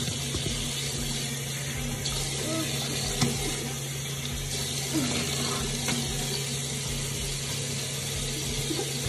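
Bathroom sink faucet running steadily, with water splashing as it is scooped onto a face. A short light knock comes about three seconds in.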